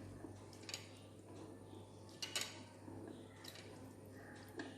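A few faint, scattered clicks and light clinks of kitchen utensils against dishes, heard while sugar syrup is spread on a cake layer.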